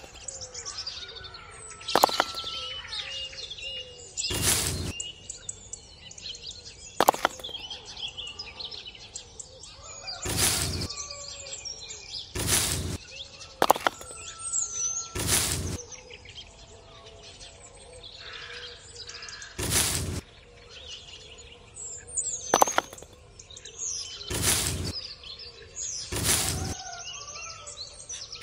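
Birds chirping over a faint steady background, with about a dozen short sharp knocks spaced every two to three seconds; the knocks are the loudest sounds.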